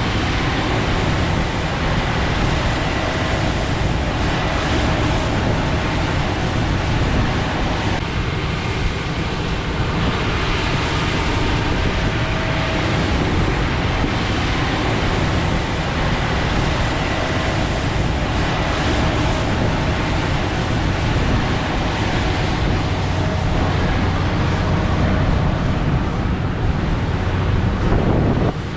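Heavy diesel harvest machinery running steadily under load, a deep continuous rumble with mechanical noise over it.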